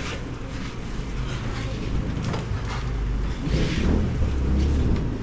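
Low rumble of handling noise on the microphone of a handheld camera carried while walking, growing stronger about three and a half seconds in.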